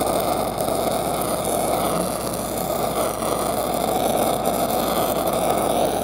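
Stick-welding arc crackling steadily as a 1/8-inch 6010 electrode runs the root pass on 2-inch pipe, with a steady low hum underneath.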